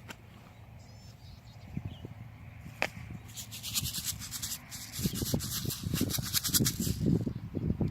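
A quick run of scratchy rubbing or scraping strokes, starting a few seconds in and stopping shortly before the end, with low handling thumps under its second half.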